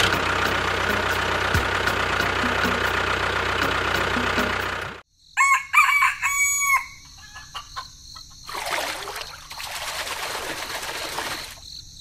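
A loud steady noise for about five seconds that cuts off suddenly. Then a rooster crows once, and insects chirp faintly with two swells of rushing noise.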